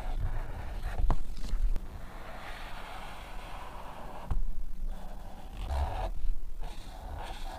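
Felt-tip marker scratching across sketchbook paper in several separate strokes, with dull low bumps from hands on the pad.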